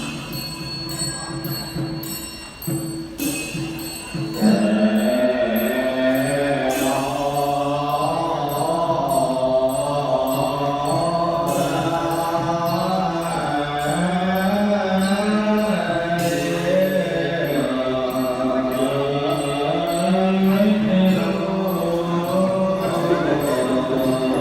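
Background music with a low, slow chanted vocal line that comes in louder about four seconds in.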